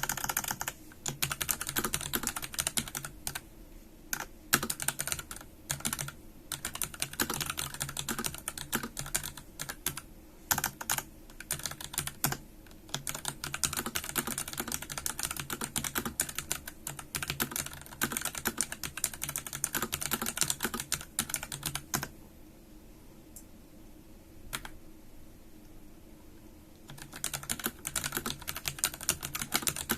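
Typing on a Pulsar PCMK tenkeyless mechanical keyboard: fast, dense runs of keystroke clacks. Near the end a pause of about five seconds is broken by a single keystroke before typing resumes.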